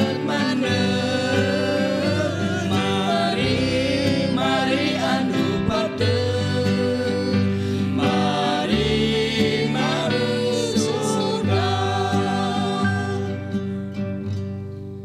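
Mixed vocal group of men and women singing a worship song in harmony to a strummed acoustic guitar, with the final chord fading away near the end.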